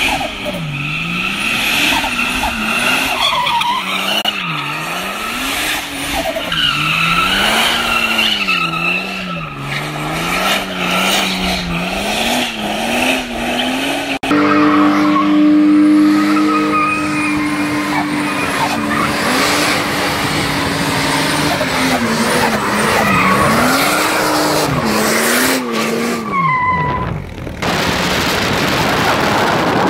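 FPV F6's turbocharged straight-six revving up and down over and over while its rear tyres spin and screech in a smoky burnout, then held at a steadier high pitch before the revs fall away. Near the end this gives way to a steady rush of wind and road noise.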